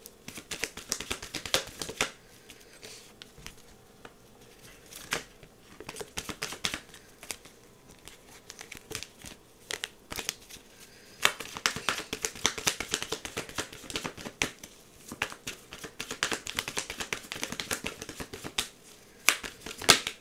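Tarot cards being shuffled and handled by hand: quick papery flicks and taps in bursts, with short pauses between.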